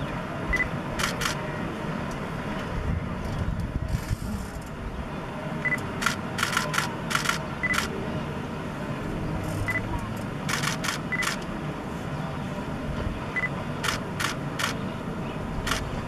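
Camera shutters firing in short bursts of a few clicks at a time, with a short high beep now and then, over a steady low rumble.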